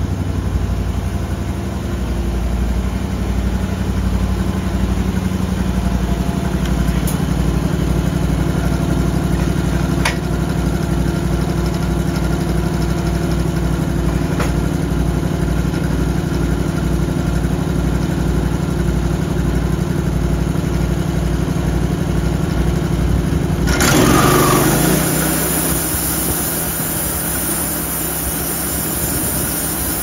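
Portable band sawmill running: a steady engine drone with a low, even pulse as the band blade saws through a hemlock cant. About three quarters of the way through, a loud hissing rush starts suddenly and then eases slightly while the engine keeps running.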